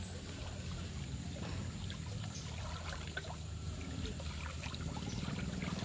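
River water flowing and trickling around people standing in it, with a few faint small splashes.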